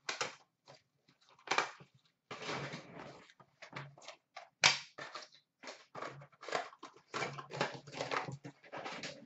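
Cardboard and plastic wrapping rustling and scraping in irregular bursts as a hockey card box is opened and its wrapped cards are pulled out, with a few sharp clicks and knocks, the loudest about four and a half seconds in.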